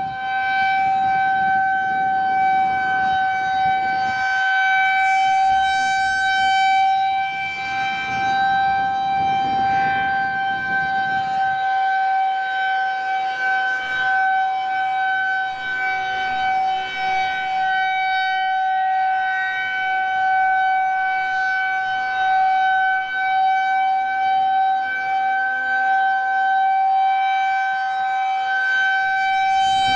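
Federal Signal 2001-130 rotating electromechanical warning siren sounding a steady test tone at full speed, its pitch holding level throughout.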